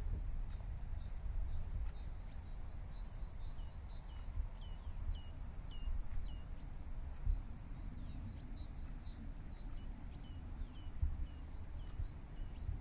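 A small bird giving short, high chirps about twice a second, pausing briefly past the middle and then going on, over a steady low rumble, with a couple of soft knocks.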